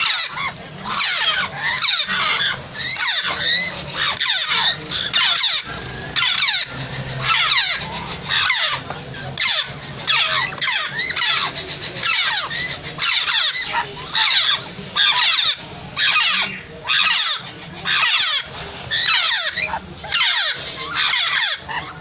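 Several African grey parrot chicks calling in a steady string of squawks, more than one a second, each call falling in pitch.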